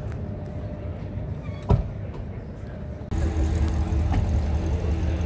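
Chevrolet Corvette C7 V8 engines idling, a steady low rumble, with a sharp knock a little under two seconds in. After about three seconds the rumble is louder.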